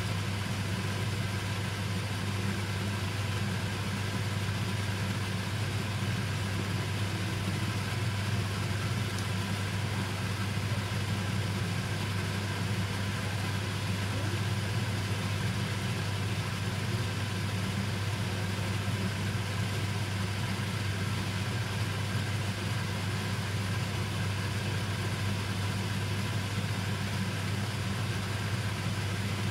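Steady low motor hum with a constant airy rushing noise over it, unchanging throughout.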